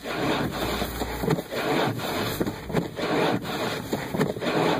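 Snowstorm wind buffeting a camera's microphone: a steady rough rushing and rumbling with irregular scraping surges.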